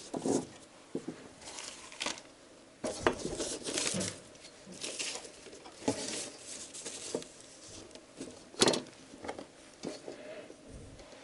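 Sheets of paper rustling and sliding as paper templates are handled, with a long steel ruler knocked and laid down on them. The sounds come in irregular short bursts, with the sharpest knock about eight and a half seconds in.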